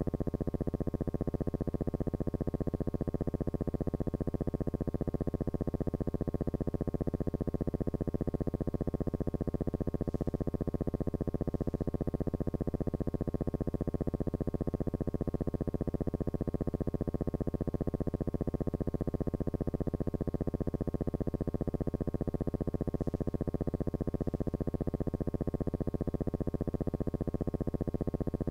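A steady electronic buzz: an even, rapidly pulsing drone that does not change at all, the kind of hum laid on an old film's soundtrack rather than sound from the scene.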